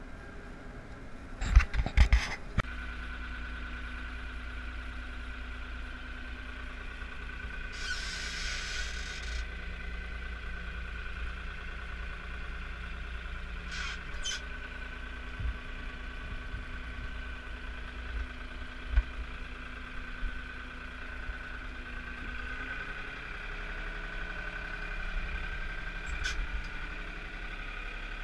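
Farm machine engine running steadily, heard from inside the cab: a low drone with a steady whine over it. A cluster of loud knocks comes about two seconds in, and a short hiss around eight seconds.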